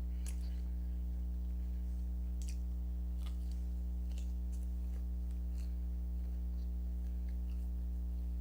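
Crunchy fried food being chewed: short, sharp crunches at irregular intervals. A steady low electrical hum runs underneath and is the loudest thing.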